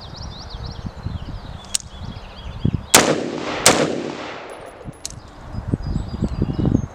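Two shots from a Radical Firearms AR-15 with a 16-inch barrel, chambered in 5.56, fired about three-quarters of a second apart, each with a long echoing tail.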